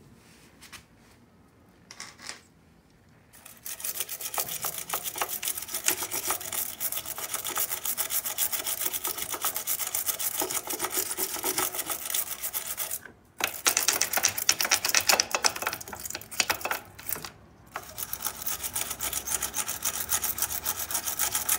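Rapid rubbing strokes of hand-polishing the rough solder patch on a stainless-steel Supertrapp motorcycle muffler. They start about three and a half seconds in and pause briefly twice in the second half.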